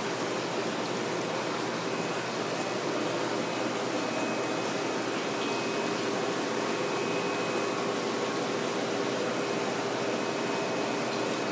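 Steady rush of water flowing through the plumbing of a recirculating fish-rearing tank system and pouring into the tanks, with a faint steady hum from its pumps.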